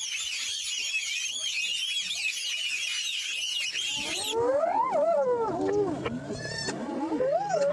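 A dense chorus of many small birds chirping at once, cut off suddenly about four seconds in. It gives way to an animal's wavering cries, two drawn-out calls that rise and fall in pitch.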